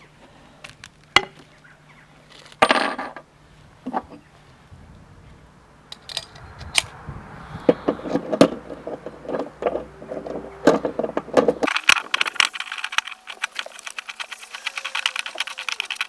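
Metal parts clinking, knocking and rattling as the mount column and its clamp lever are worked onto a camera track dolly's top plate, with a scrape about three seconds in and a rapid run of metallic clicks over the last few seconds.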